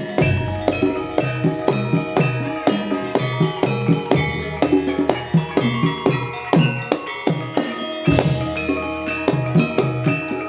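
Jaranan gamelan music: hand drums and ringing metal percussion playing a fast, steady beat, with a brighter crash about eight seconds in.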